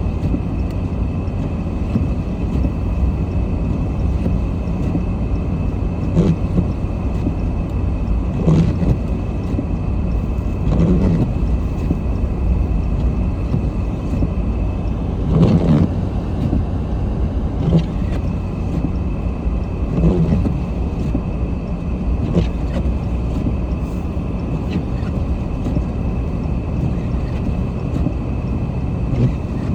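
Car driving on a snow-covered road, heard from inside the cabin: a steady low engine and tyre rumble, with a short knock about every two seconds.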